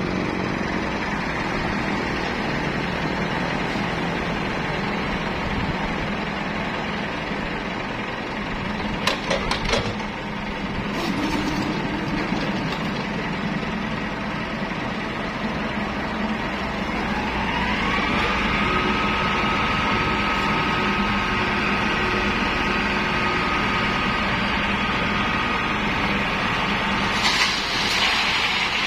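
Diesel engines of an excavator and a mini concrete mixer truck running steadily. A high whine rises a little past halfway and holds until near the end, with a few knocks about nine to eleven seconds in.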